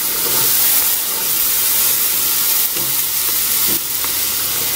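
Chopped onion and green bell pepper sizzling as they are tipped into a pot of hot, dark roux: a steady, loud hiss of the vegetables frying.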